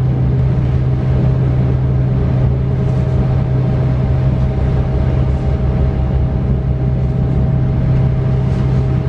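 Interior running noise of a DB Class 425 electric multiple unit travelling at steady speed, heard from the passenger compartment: a steady low hum with a fainter steady higher tone above it, and no change in level.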